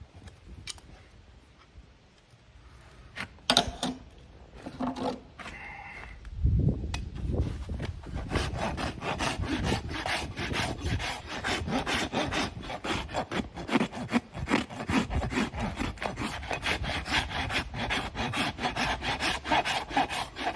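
Farrier's hoof rasp filing a pony's hoof wall in quick, repeated scraping strokes, levelling the foot off after trimming; the rasping starts about six seconds in, after a few scattered knocks.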